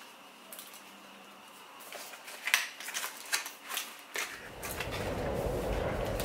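Cardboard packaging being handled: scattered taps, clicks and rustles of a white product box and card. About four seconds in a louder, steady, low rushing noise sets in and continues.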